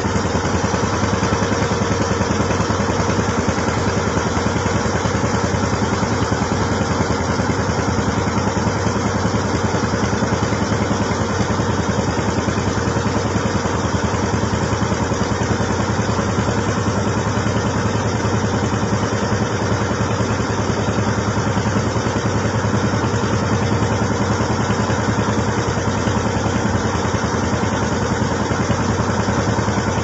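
Engine of a pompong, a wooden motorboat laden with logs, running steadily at an even pitch as the boat moves along a canal.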